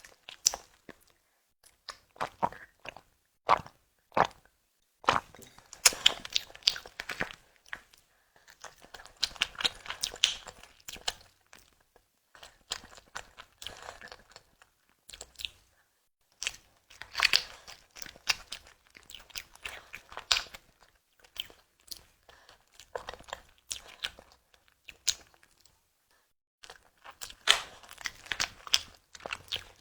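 Close-miked mouth sounds of someone biting and chewing a tiger skin dessert: wet clicks and smacks come in irregular clusters, with short quiet pauses between bites.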